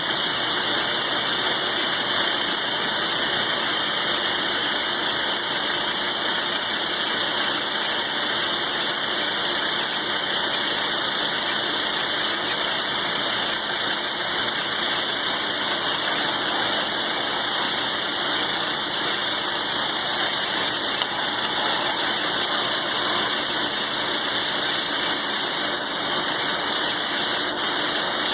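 Milling machine running steadily, a roughing end mill cutting into thick steel for a log-splitter blade.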